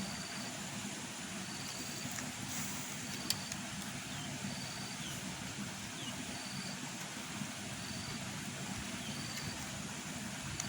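Steady rural background noise with a short, high chirp repeating about every second or so, and a couple of sharp clicks.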